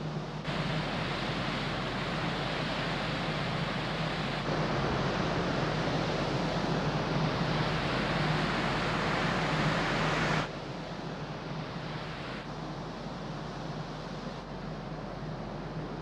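Steady rush of wind and water on the open deck of a moving large car ferry, over a low steady hum from the ship's engines. The noise grows louder about half a second in and again about four seconds in, then drops suddenly about ten seconds in.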